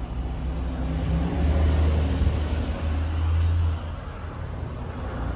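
Low, steady engine rumble that swells louder for about two and a half seconds, from about a second in, then drops back.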